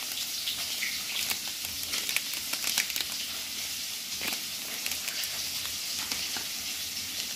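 Fish frying in hot oil: a steady sizzle with scattered crackles and pops.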